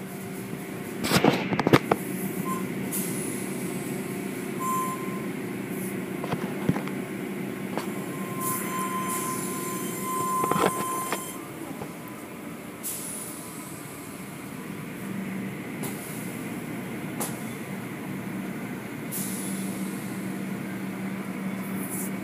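Automatic tunnel car wash running, heard from inside a car going through it: a steady machine hum with short bursts of hissing spray every few seconds, and a burst of loud knocking about a second in.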